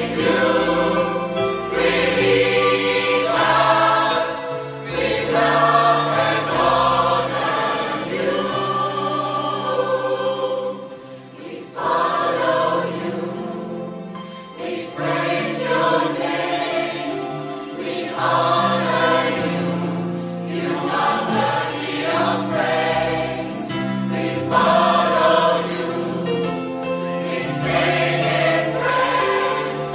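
Large mixed gospel choir, women's and men's voices together, singing sustained chords. The sound dips briefly about eleven seconds in before the full choir comes back.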